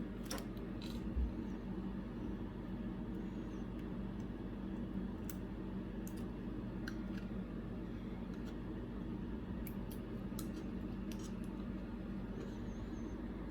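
Faint, scattered small clicks and taps of repair tools against an iPad's internals as its charging port assembly is worked loose, over a steady low hum, with a soft bump about a second in.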